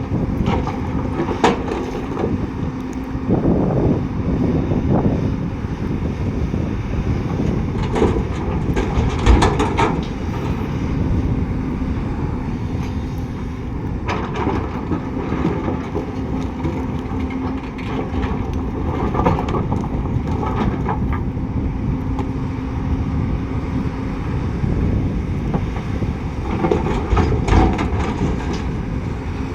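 Heavy diesel earthmoving machinery running steadily with a low rumble and hum, with short bursts of metallic clanking that come and go several times.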